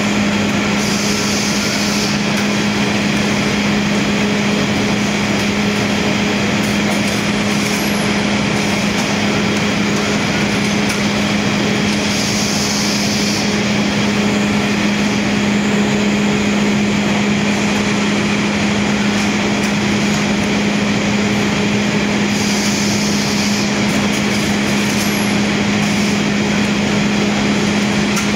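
Steady drone of can-factory machinery with a strong low hum, and a short hiss about every ten seconds.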